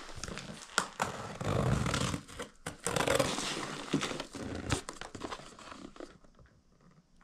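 Crinkling plastic packaging being torn open and handled, mixed with scattered sharp clicks and knocks. The rustling stops about six seconds in.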